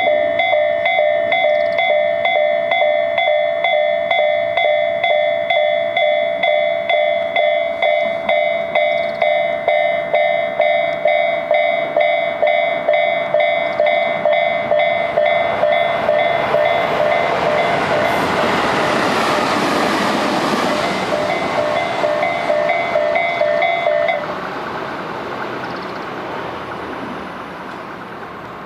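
Japanese railway level-crossing warning bells ringing in a steady rhythm, a mix of two bell sounds of different tone (the Isesaki-type sound and the 'pon-pon' type) striking out of step with each other. A train passes through the crossing, its noise swelling midway and then fading; the bells stop about 24 seconds in.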